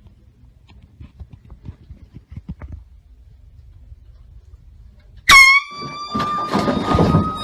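Faint low knocks and rustling for about five seconds, then a sudden loud air horn blast: one steady tone held for nearly three seconds, with a rush of noise under its second half.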